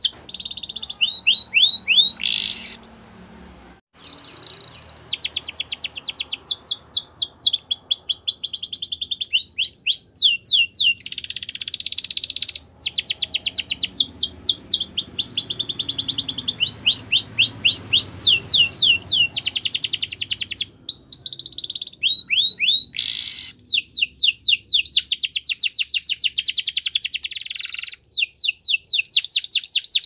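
Domestic canary singing a long, loud song of fast trills. Each phrase is a run of quickly repeated notes, and the phrase changes every second or two. There is a short pause about three seconds in.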